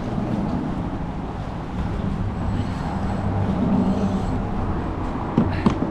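Steady low engine rumble that swells a little past the middle, with a few sharp clicks near the end.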